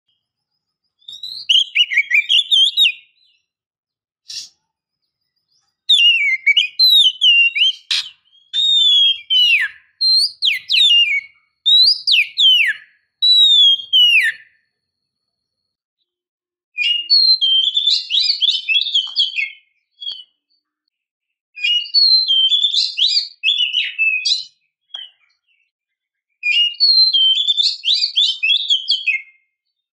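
Oriental magpie-robin (kacer), put forward as a female in breeding condition, singing in bursts of quick, varied whistles and chatter. Between about 6 and 14 s the notes are mostly long, falling whistles.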